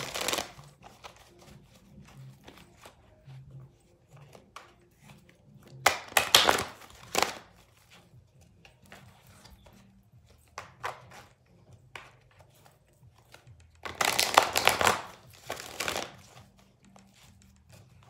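A deck of oracle cards being shuffled by hand, in three louder spells of rustling and slapping (at the start, about six seconds in, and about fourteen seconds in) with lighter card flicks and taps between.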